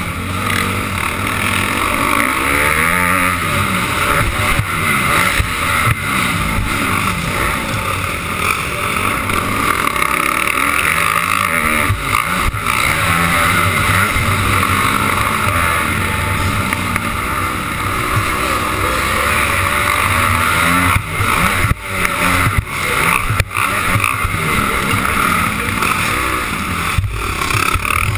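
Motocross bike engine revving up and falling off over and over as it is ridden hard around a dirt track, with a few abrupt breaks in the sound near the end.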